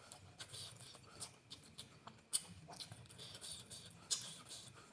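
Close-up eating sounds: irregular wet mouth clicks and chewing, with two sharper smacks about two and a half and four seconds in.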